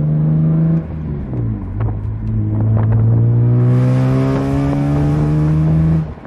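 BMW E46 M3's straight-six, fitted with long-tube headers, accelerating hard: its pitch climbs steadily, drops at a gear change about a second in, climbs again through the next gear, and the throttle is lifted near the end.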